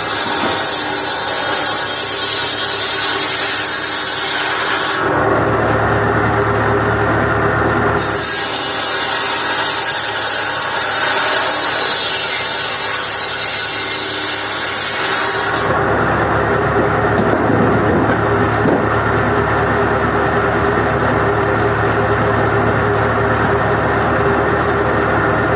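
Circular saw blade of a PTO-driven saw bench on a 1958 Massey Ferguson 35 cutting firewood: the blade rasps through wood twice, for about the first five seconds and again from about eight to fifteen seconds in. Between and after the cuts the tractor's four-cylinder engine and the free-spinning blade run with a steady hum.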